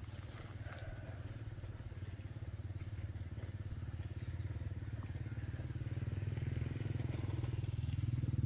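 Tractor engine running with a fast, even pulse, growing steadily louder.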